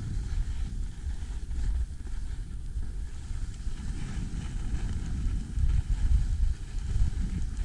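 Wind buffeting the microphone of a skier's camera during a fast run down a groomed piste: a gusty low rumble that swells and eases, strongest a little past halfway.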